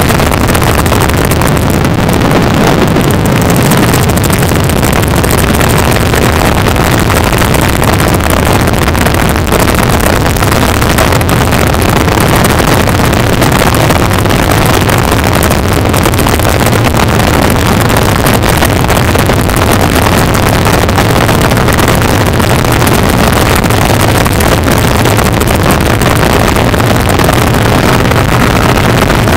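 Loud, steady helicopter noise heard from inside the cabin: the rotor and engine drone without a break, with a steady low hum.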